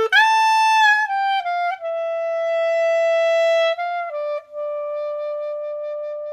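Music: a single woodwind-like melody line, unaccompanied, starting abruptly and playing long held notes that step downward in pitch.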